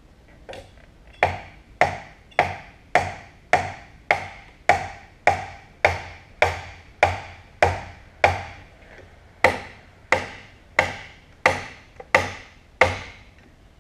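About nineteen steady hammer blows with an orange-headed hammer on a stuck part of an old Canedy & Otto drill press, roughly one every 0.6 s, each ringing briefly, with a short pause near the middle. The part is being driven past one spot where it sticks, which the owner suspects is a burr.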